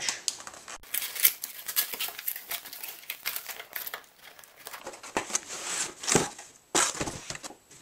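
Cardboard packaging being handled: a stiff cardboard insert and box flaps scraping and rustling as the box is opened and the insert lifted out, with a few sharper knocks near the end.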